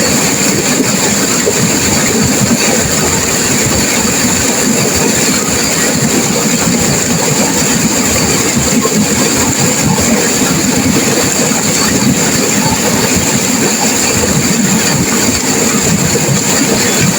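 Turbulent river water rushing and crashing, a loud, steady, unbroken roar.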